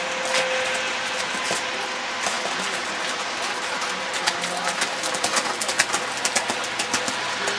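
Outdoor arena ambience: a steady hiss with faint distant voices, and irregular sharp clicks over the last three or four seconds.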